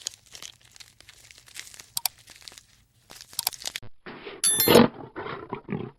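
An animal crunching and tearing in quick, irregular strokes, as when chewing and ripping food. About four and a half seconds in comes one loud, sharp cry, followed by rough, lower calls.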